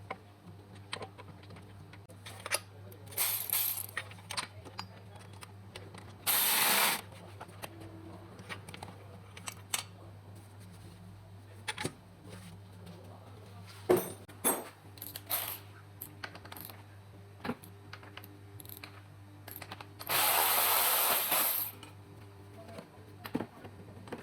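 Mechanic's tools clinking and knocking against metal while an engine is dismantled, over a steady low hum, with two loud hissing blasts of air or spray, a short one about six seconds in and a longer one about twenty seconds in.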